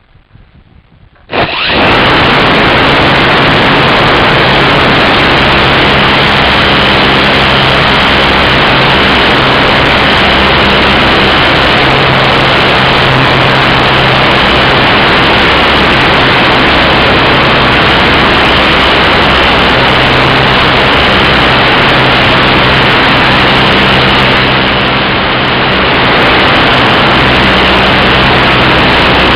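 Electric RC glider's motor and propeller heard through the onboard camera microphone. It starts suddenly about a second and a half in and then runs steadily at high power, with loud wind rush over the camera. The sound eases slightly for a moment late on.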